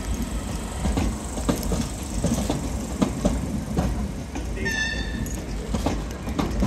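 Irish Rail 8510 class DART electric train rolling past: a steady low rumble with irregular clacks of the wheels over the rail joints, and a brief high squeal about five seconds in.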